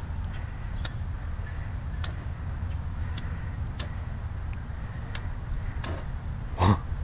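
Wind rumbling on the microphone, with a sharp click every second or so from a hand-held lighter being struck again and again. A louder short thump comes near the end.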